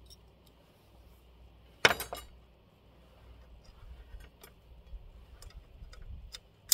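Small metal hardware clinking as a ground-plane radial wire with a carabiner clip is handled at a metal antenna mast: one sharp clink with a short rattle about two seconds in, then light scattered ticks.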